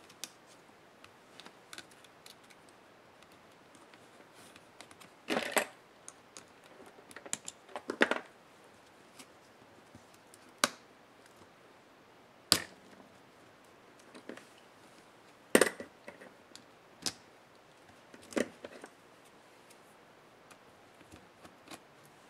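Hands working on an opened laptop with a small screwdriver. Scattered clicks, taps and brief scrapes come from the tool and small plastic and metal parts being handled on the bench, with a few sharp single clicks about two seconds apart in the second half.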